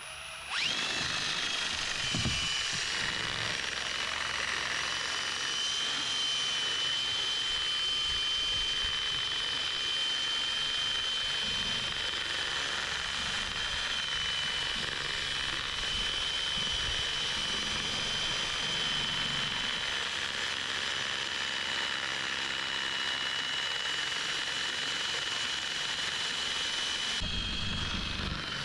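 Cordless drill rigged as a kayak motor, spinning a propeller on a long shaft: it spins up about half a second in and then holds one steady high whine.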